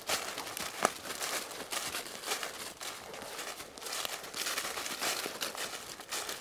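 Dry fallen leaves rustling and crunching underfoot as a person and a dog walk through leaf litter, with one sharper crunch just under a second in.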